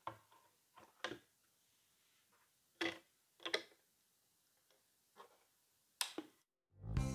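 Handling clicks and knocks of a vinyl record being laid on a suitcase-style turntable and its tonearm being moved: about half a dozen separate sharp clicks, a second or so apart. The loudest click, about six seconds in, comes as the stylus is set on the record, and the record's music begins just before the end.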